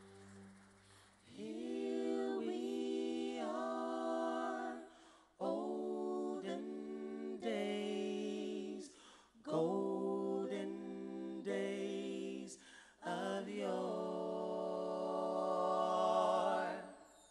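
Small vocal ensemble singing a cappella, holding full chords in four phrases of about four seconds each, with short breaths between them. The last phrase swells and is released near the end.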